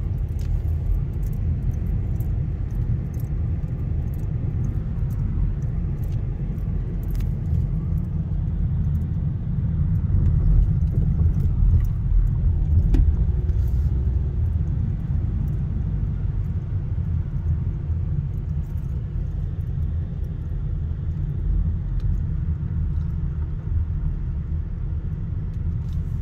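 Steady low rumble of a car driving slowly, heard from inside the cabin: road and engine noise.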